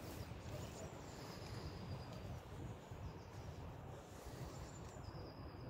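Quiet outdoor ambience: a low steady microphone rumble, with short thin high bird calls about two seconds in and again near the end.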